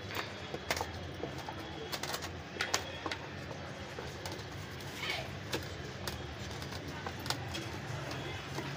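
A plastic cup knocking and scraping against a stainless-steel basin as a thick mash is stirred and worked by hand, in irregular clicks and taps, over a steady low hum.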